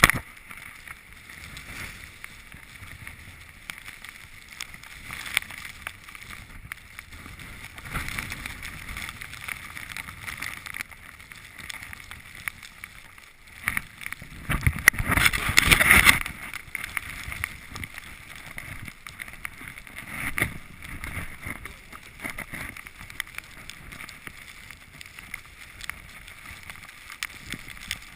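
Skis or a board hissing and scraping over snow on a downhill run, with wind buffeting the microphone. About halfway through, a louder rush of scraping lasts about two seconds.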